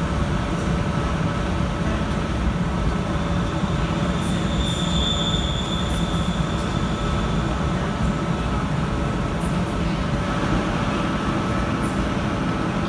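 Class 350 Desiro electric multiple unit running slowly along the platform, a steady rumble of wheels and motors with a steady hum. A brief high wheel squeal comes about five seconds in.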